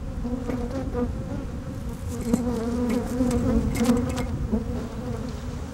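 Honeybees buzzing thickly around an open hive and a comb frame that is crowded with bees: a steady, even hum. A few light knocks and clicks come between about two and four seconds in.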